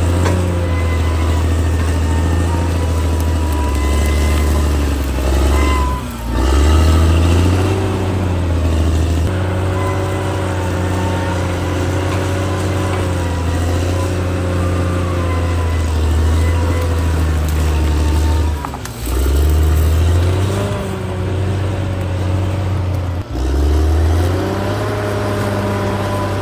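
Caterpillar D6R XL bulldozer's diesel engine running steadily under load. Its engine speed dips briefly and picks back up three times, about 6, 19 and 23 seconds in.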